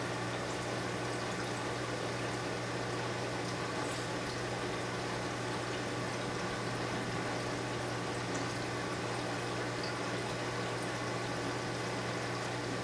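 Reef aquarium's circulation pumps and moving water running steadily: a constant low hum under an even wash of water sound.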